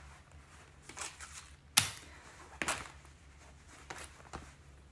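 Leggings being unfolded and handled: soft rustling of the fabric with a few short, sharp snaps, the loudest a little under two seconds in.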